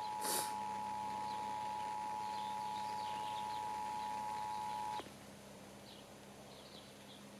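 Emergency Alert System attention signal: the steady two-tone alarm of 853 and 960 Hz sounded together, heard over FM radio, cutting off abruptly about five seconds in. A brief burst of noise cuts across it just after the start.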